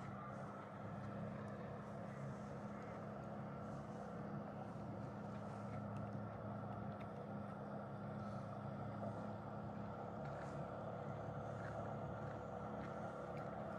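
A boat's motor running steadily, a constant low hum with an even drone over it.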